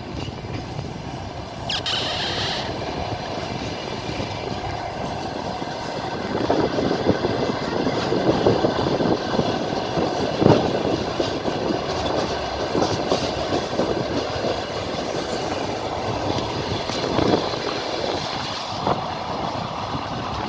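Train running along the track: a steady rumble of the wheels and carriages with scattered knocks at the rail joints, and a brief high-pitched squeal about two seconds in.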